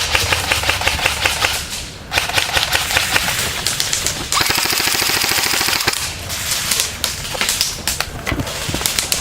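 Airsoft guns firing rapid automatic bursts, a fast rattle of clicks in several runs, with one longer unbroken burst of nearly two seconds about four seconds in.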